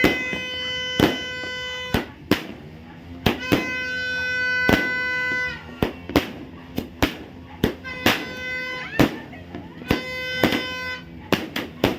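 Firecrackers bursting in a rapid, irregular string of sharp bangs, over which a held, steady musical tone sounds four times, each lasting one to two seconds.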